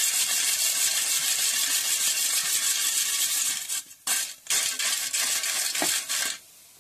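Crisp fried tapioca chips rattling and rustling as they are tossed in a perforated plastic colander to mix in chilli powder. The tossing runs steadily, then breaks into a few short bursts after about three and a half seconds and stops shortly before the end.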